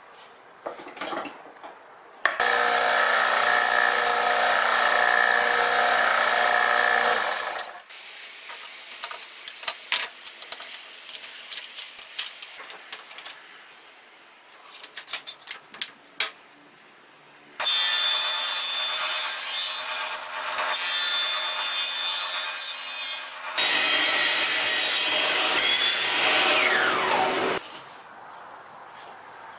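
Table saw running and cutting wood in long steady stretches, about two seconds in, again about halfway through, and once more straight after, with the motor's steady hum under each cut. Between the first and second cuts, thin wooden offcuts clatter and knock as they are handled on the metal table.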